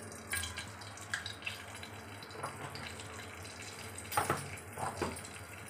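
Hot oil with a pinch of asafoetida (hing) sizzling faintly in an iron kadhai on a gas burner, a steady hiss. A few light knocks about four seconds in.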